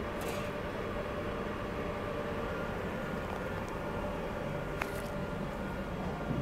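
Steady machine hum of a running Brooks MX400 vacuum wafer-transfer platform, its pumps and fans. A faint high steady whine comes in a couple of seconds in, and there is a single sharp click about five seconds in.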